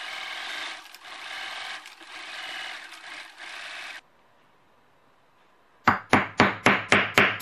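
Electric sewing machine stitching a fabric strap in short runs of about a second with brief stops. After a pause, a hammer strikes a metal rivet setter in quick succession, about four blows a second, setting a rivet through the strap.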